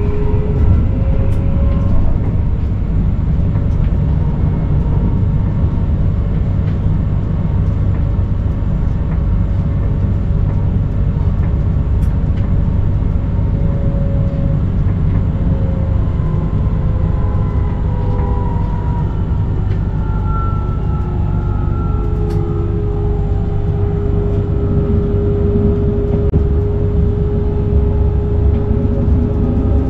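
Forchbahn electric commuter train running along its line, heard from the driver's cab: a steady low rumble of wheels on rail, with a faint motor whine that slowly slides in pitch and settles to a steady tone near the end.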